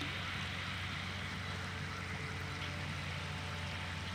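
Stream water flowing steadily, an even rush of running water.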